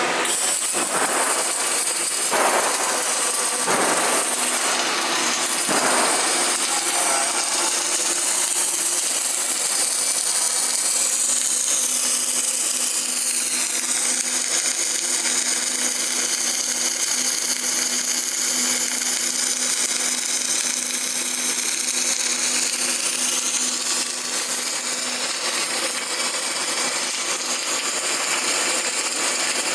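A power tool running steadily throughout, with a few sharp knocks in the first six seconds. Its high pitch sags and comes back up in the middle, as if the tool were being loaded.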